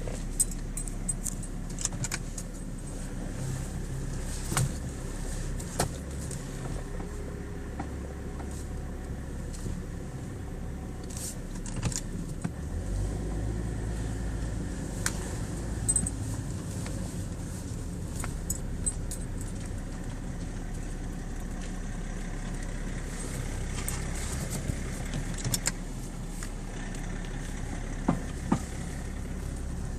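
BMW E60 idling with scattered sharp knocks and clicks from the steering column as the steering wheel is turned. The uploader traced the knocking to low power steering fluid.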